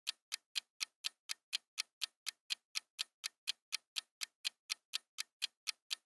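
Countdown-timer ticking sound effect: a steady clock tick, about four ticks a second.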